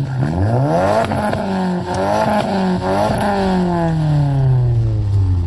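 Car engine revving: its pitch climbs in several quick runs, then falls slowly over the last couple of seconds.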